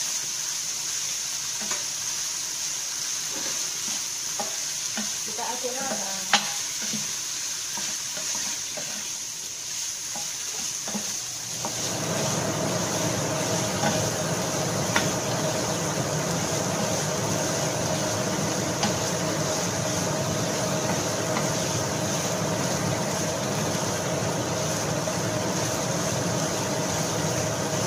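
Diced chicken frying in oil in a non-stick pan, sizzling steadily while a wooden spatula stirs and scrapes through it. There is a sharp click about six seconds in, and the frying grows louder and fuller about twelve seconds in.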